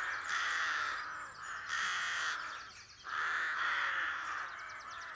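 Rooks cawing at their rookery: a series of about four harsh, drawn-out caws, with some calls overlapping.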